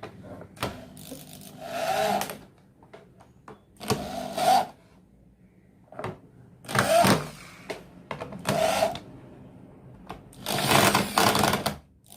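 A power screwdriver driving the screws that fasten an 8-inch subwoofer speaker into its enclosure. It runs in about five short bursts, one per screw, with pauses between them; the last burst is the longest.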